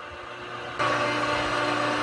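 Reversible AC motor of a tilt-over tower's drive running, turning a long threaded rod that pushes the tower over. It gives a steady hum that becomes louder and fuller a little under a second in.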